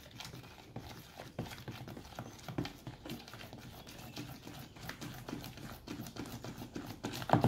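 A spoon stirring slime mixture in a green plastic bowl just after the activator has been added, making irregular clicks and scrapes against the bowl, with one louder knock near the end.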